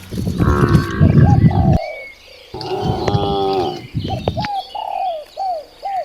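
Animal calls in separate bursts with abrupt cuts between them, ending in a run of about five short, hooked bird calls in quick succession.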